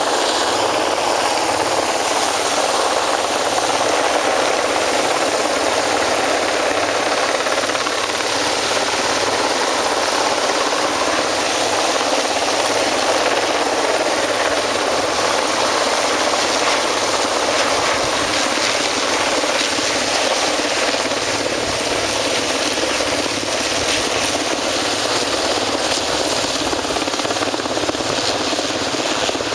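Heavy helicopter hovering low overhead during a water-bucket pickup. Its rotor and turbine engines make a steady, unbroken noise throughout.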